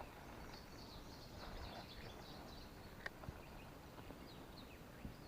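Faint songbirds singing: quick high chirps and trills, with a couple of soft clicks about three seconds in.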